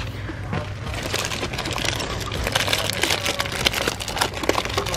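Cellophane-wrapped packs of wooden craft sticks being handled and shuffled: the plastic wrap crinkles and the sticks clack against each other in a dense run of small clicks and crackles, over a steady low hum.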